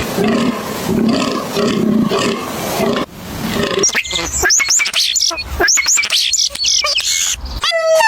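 Animals calling: a rough, loud roaring call for about the first three seconds, then a run of quick high chirps. Near the end a long, steady pitched note with many overtones begins.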